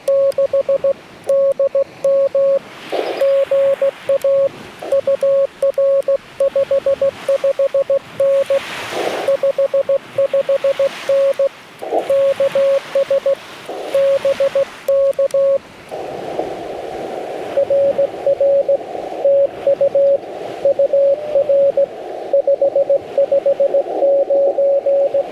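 Morse code from a Yaesu FT-891 transceiver: a single steady tone keyed on and off in quick dots and dashes over receiver hiss. The hiss gets louder about two-thirds of the way through, and a few short bursts of noise break in.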